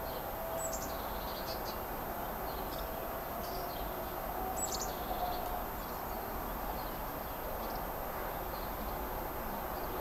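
Small songbirds chirping in short high calls, with two sharper falling calls about half a second and four and a half seconds in, over a steady outdoor background hiss and a faint steady hum.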